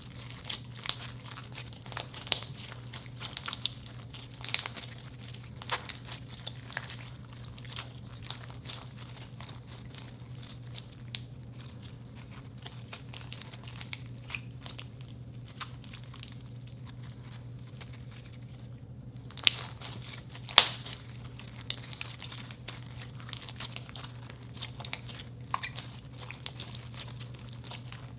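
Thick beige slime studded with foam beads and chunky chips being squeezed, stretched and folded by hand: irregular wet clicks, pops and crackles, with two louder pops about twenty seconds in.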